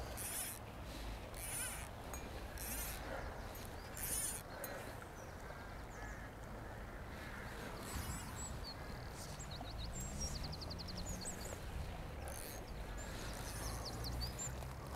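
River ambience: water flowing and wind rumbling on the microphone, with a few short rustles early on. Small birds chirp from about halfway through, with one quick rapid trill.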